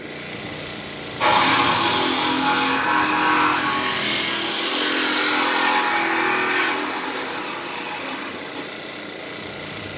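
Power saw cutting through thin, weathered steel of a mobile home frame. It starts abruptly about a second in, runs steadily for about six seconds, then eases off.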